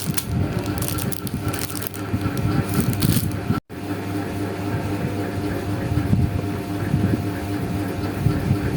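Close-miked rustling, crinkling and small clicks of paper and stationery being handled while laying out a journal page. The sound cuts out for a moment about three and a half seconds in.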